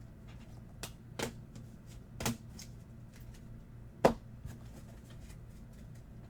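Trading cards being handled and tapped down on a table: a handful of sharp clicks and taps, the loudest about four seconds in, over a faint steady low hum.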